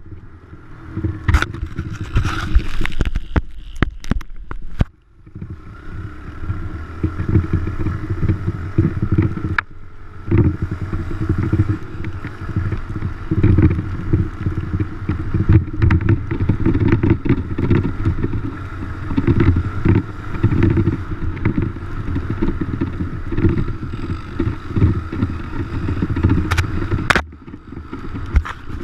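Dirt bike engine running during a ride, its loudness rising and falling unevenly, with a brief sudden drop about five seconds in.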